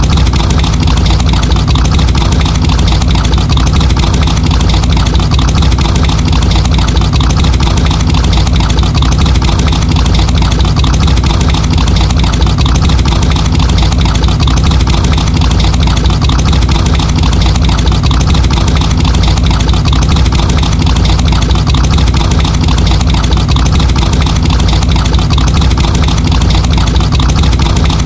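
Muscle car V8 engine idling steadily with a deep, even low rumble, no revs.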